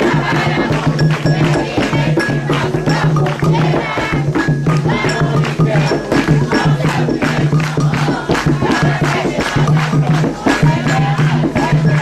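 Umbanda ritual music: fast, steady drumming with shaken rattles, and voices singing over it.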